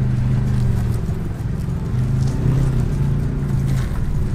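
GMC Sierra AT4X's 6.2-litre V8 running at low revs as the truck crawls down a rocky ledge, its pitch rising and falling slightly with the throttle.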